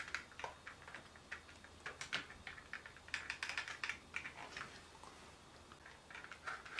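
Faint, irregular small clicks and taps of a fingertip pressing and sliding over an OtterBox Glass screen protector on a phone in a plastic alignment tray, pushing out the air bubbles trapped under the glass.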